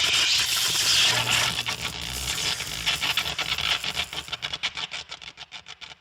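Electric crackle sound effect: a dense sizzling crackle of sparks that, about four seconds in, breaks into a rapid run of separate sputtering clicks that grow fainter.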